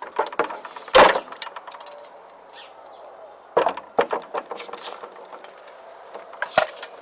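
Scattered knocks and clicks from a parrot working at a wooden door and its lock, over a faint steady hum. The loudest knock comes about a second in, two more come near the middle and one near the end.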